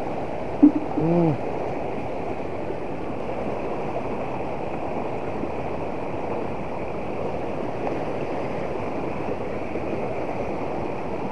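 Fast-flowing river rushing over rocks, a steady even rush of water. A short voice sound breaks in briefly about a second in.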